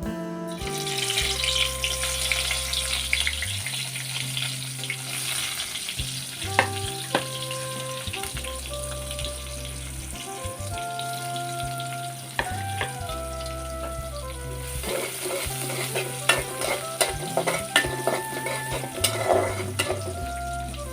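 Curry frying in hot oil in a pan, sizzling steadily, with a utensil knocking and scraping against the pan as it is stirred. Background music with a steady bass line plays under it.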